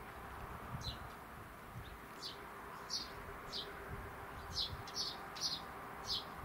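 A bird calling with repeated short, sharp chirps, irregularly spaced and coming closer together in the second half.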